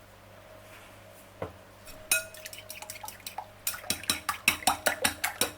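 A fork whisking eggs and milk in a bowl. A single knock about a second and a half in, then rapid clicking of the fork against the bowl from about two seconds, growing faster.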